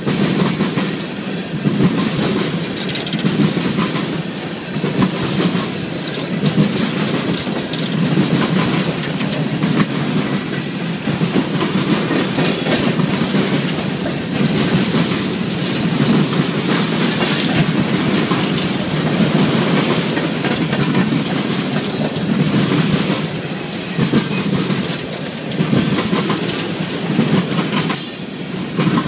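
Coal train's gondola cars rolling past at close range: a steady rumble of steel wheels on rail, with repeated clicks as the wheels cross rail joints.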